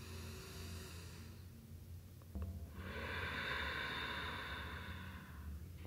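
A person breathing audibly into the microphone: a short breath at the start, then a longer, louder breath from about three seconds in, over a steady low electrical hum.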